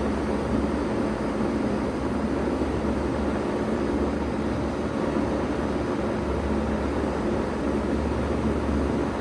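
2000 Bard 3-ton wall-hung heat pump running steadily in cooling mode: a constant low hum under an even rushing noise.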